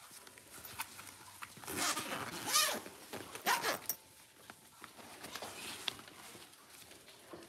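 A few short, rasping, rustling bursts of handling noise, bunched between about two and four seconds in, while puppies are gathered into a carrier.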